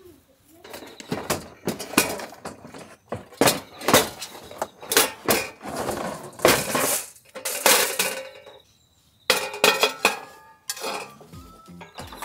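Repeated clinks and clatters of camp cooking gear being handled: an Iwatani cassette gas stove lifted out of its plastic carry case and a black griddle pan set on its burner.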